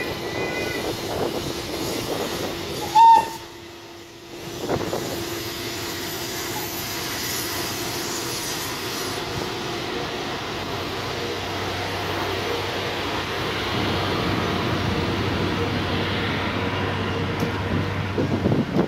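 Electric train running through the railway yard with steady rail and running noise. About three seconds in comes one short, loud horn blast, and a low steady hum comes in during the second half.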